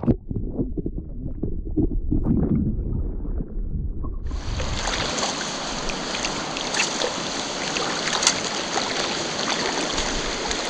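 A low, muffled rumble with irregular knocks, like wind or handling on the microphone. About four seconds in it switches abruptly to the steady rush of river water flowing.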